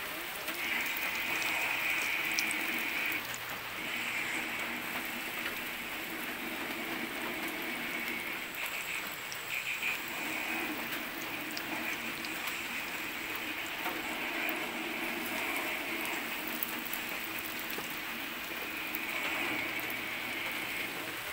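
Breadcrumb-coated bread rolls sizzling steadily in hot oil in a frying pan, with fine crackles throughout.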